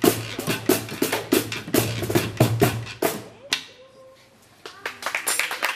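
Unplugged band playing the last bars of a song to a steady percussive beat, stopping on a final stroke about three and a half seconds in. Near the end, clapping and voices begin.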